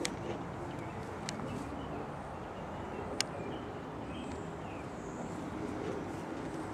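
Steady outdoor background noise with a few faint bird chirps and three sharp clicks, the loudest about three seconds in.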